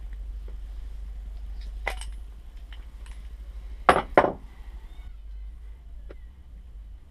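Metal tools and shock parts being handled during rear-shock service: a few light clinks and clicks, then two sharp knocks in quick succession about four seconds in, over a low steady hum.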